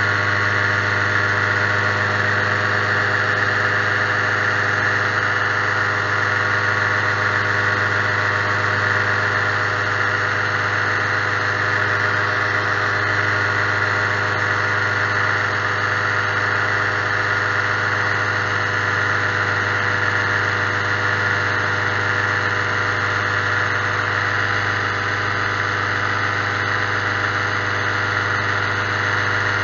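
Paramotor engine and propeller running steadily in flight: one constant, unchanging drone at cruise throttle.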